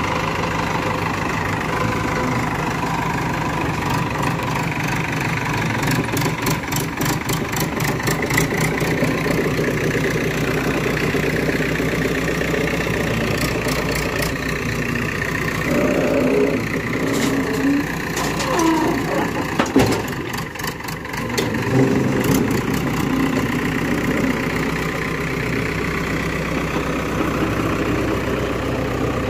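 Diesel engine of a JCB backhoe loader running under load while the front loader bucket works, its note rising and falling several times in the middle as the engine is revved.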